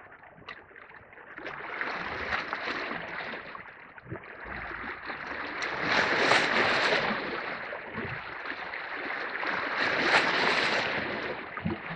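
Small sea waves washing and gurgling against the rocks of a breakwater, swelling and fading in surges every few seconds.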